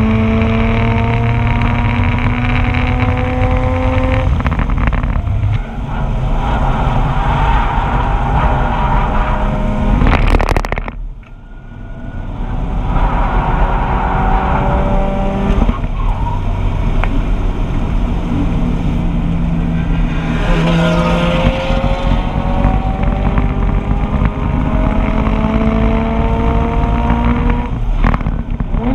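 2004 Mazda RX-8's two-rotor rotary engine pulling hard on a track lap, its pitch climbing through each gear and dropping at every upshift. The driver lifts off once, about eleven seconds in, before it pulls again.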